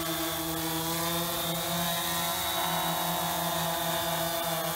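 Bayangtoys X21 quadcopter hovering low, its brushless motors and propellers giving a steady whine whose pitch dips and rises slightly.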